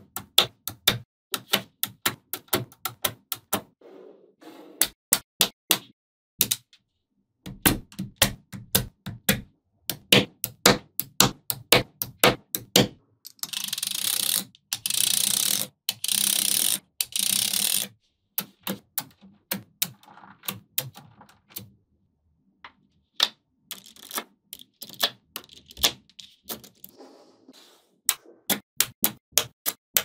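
Small magnetic balls clicking sharply as they snap together and onto a structure, several clicks a second in irregular runs with short pauses. Around the middle comes about four seconds of dense, continuous rattling in four short blocks, as a thin stick is run along a row of the balls.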